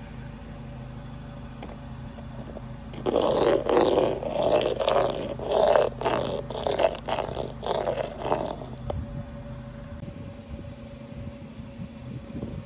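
A car's engine runs steadily at idle. About three seconds in, louder, rougher car noise rises and falls in repeated pulses for about five seconds, then drops back to the idling hum.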